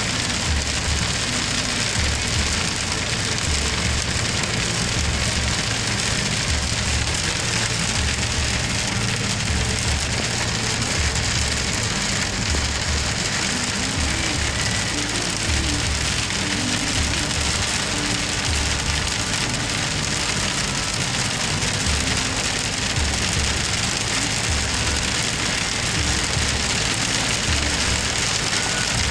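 Heavy rain drumming on a car's roof and windshield, heard from inside the cabin as a dense, steady hiss. A low pulse repeats about every second and a half beneath it.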